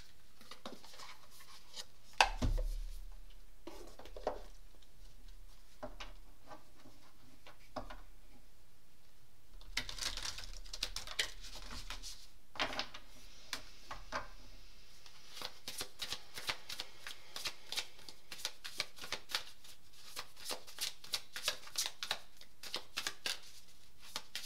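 A deck of oracle cards being handled and shuffled by hand: one sharp knock about two seconds in, a rustle of cards around the middle, then a quick run of card clicks at about four a second near the end.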